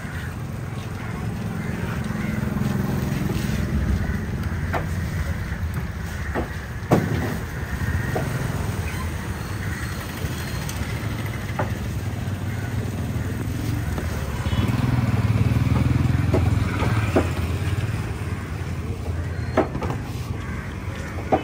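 A motor vehicle's engine running, swelling louder twice as it comes close. Several sharp, short knocks are spaced through it.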